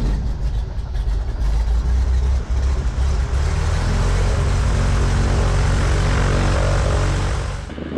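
Cessna 180's six-cylinder Continental O-520 piston engine and propeller, just started: running roughly at first, then settling into a steady idle from about halfway in. The sound stops abruptly shortly before the end.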